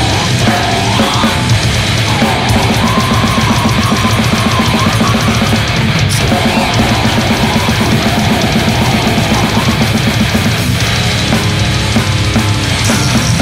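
Brutal death metal recording: heavily distorted electric guitars over fast, dense drumming, loud and unbroken throughout.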